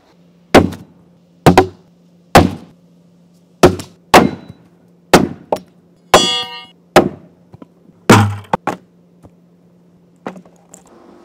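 A series of sharp wooden thunks, about nine in all and roughly a second apart, of throwing axes striking a wooden axe-throwing target built from 2x4 boards. One strike just past the middle rings briefly with a metallic tone. A faint low hum runs underneath and stops near the end.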